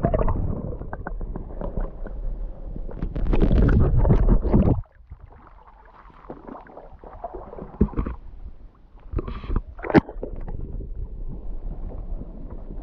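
Muffled sloshing and gurgling of creek water around a camera dipped underwater, starting suddenly as it goes in. Loud for about five seconds, then cuts down to a quieter wash with a few sharp knocks.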